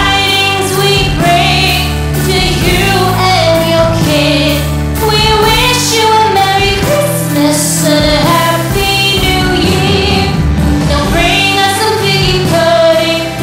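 A Christmas song playing: singing voices over a steady musical accompaniment.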